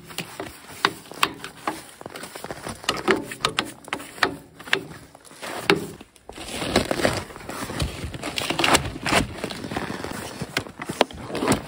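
A stiff hand brush sweeping snow off a tracked sled's slatted deck, heard as a run of short scrapes and clicks. About halfway through, a board and a plastic cooler are set down and shifted on the deck, giving noisier scraping and knocks.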